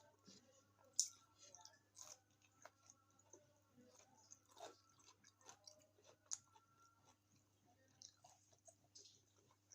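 Close-miked mouth sounds of a person chewing and biting food, with wet smacks and clicks, the sharpest about a second in and again a little after six seconds. A faint steady hum runs underneath.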